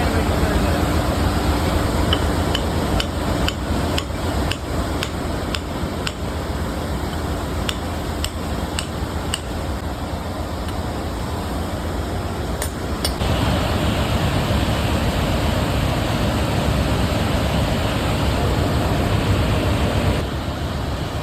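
Sharp metal hammer strikes, about two a second over several seconds with a pause and two more later, driving a valve guide into a diesel engine's cylinder head, over a steady engine-room machinery din.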